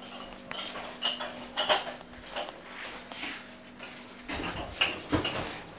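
Dishes and cups clinking against each other a few times, then a run of heavier knocks and thumps about four seconds in.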